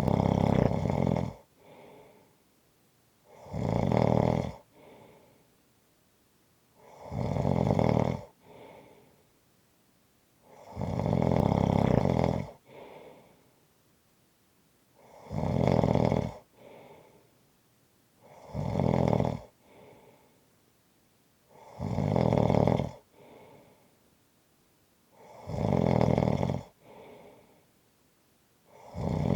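A person snoring in a steady rhythm: a loud, rasping snore about every three to four seconds, each followed by a fainter, shorter sound.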